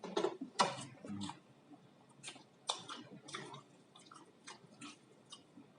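Close-up eating sounds of a person chewing food, with irregular wet smacks and clicks of the mouth.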